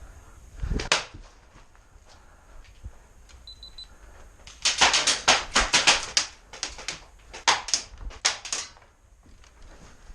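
Airsoft gunfire: a single sharp snap, then a quick, irregular run of about a dozen clicking shots a few seconds later, in a small room.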